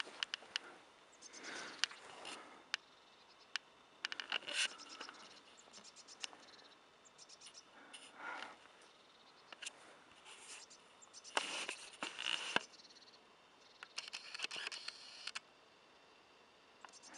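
Gritty crunching and scraping underfoot on a debris-strewn concrete floor, in irregular bursts mixed with scattered small clicks.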